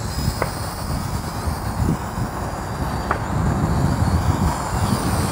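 Gusty wind buffeting the microphone with an uneven low rumble. Under it is the faint high whine of a small toy quadcopter's geared coreless motors in flight.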